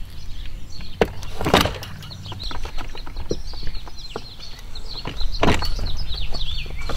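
Knocks and clatters of aluminium tubing and kayak cart wheels being handled and fitted. The loudest knocks come about one and a half and five and a half seconds in, over a low steady rumble. Small birds chirp rapidly through the second half.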